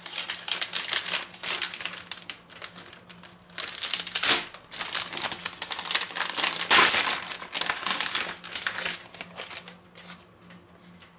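Plastic packets of sliced ham and cheese crinkling and crackling as they are handled and opened, loudest about four and about seven seconds in, dying away near the end.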